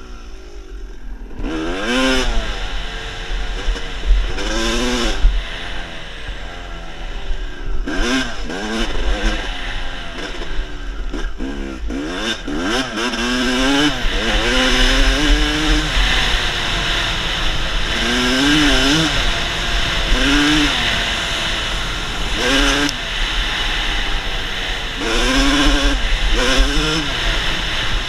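Dirt bike engine revving up and dropping back over and over as the bike is ridden hard, each burst of throttle a rising then falling pitch.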